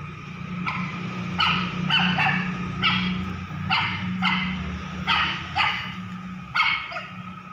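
A confined puppy yelping over and over: a dozen or so short, high yelps, about two a second, each falling in pitch. A steady low hum runs underneath.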